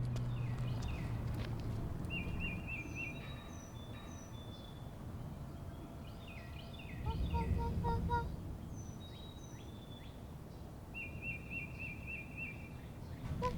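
Several birds chirping and calling, with short falling chirps and quick repeated trills, over a low steady background rumble.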